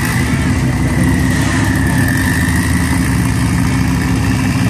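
Turbocharged four-cylinder engine of a Chrysler Conquest drag car idling steadily and loudly, with a thin high whine held over it.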